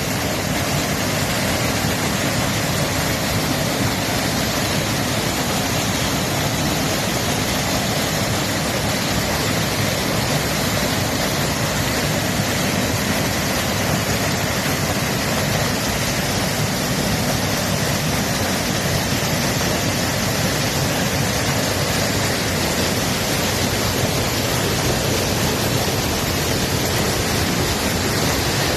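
Running water rushing steadily, a continuous even wash of sound with no breaks.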